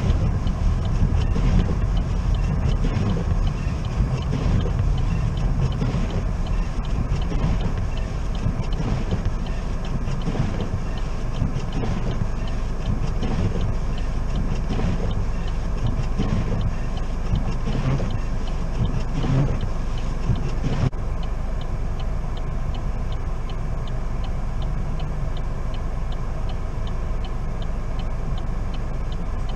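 Car interior noise while driving slowly: a steady low rumble of engine and road, with faint ticking scattered through it.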